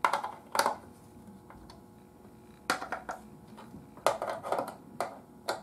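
A screwdriver working the chassis mounting screws at the bottom of a tube radio's cabinet: about six short clusters of clinks and scrapes, two near the start and the rest from about halfway on.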